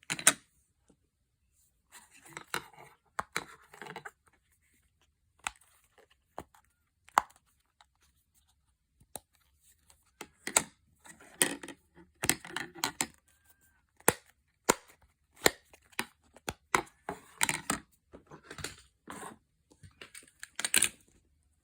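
Fidget toys being handled: an irregular string of sharp clicks and snaps mixed with short rustling, tearing-like bursts, with brief pauses between them.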